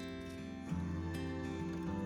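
Background music: soft plucked guitar melody with steady held notes, a new chord coming in under a second in.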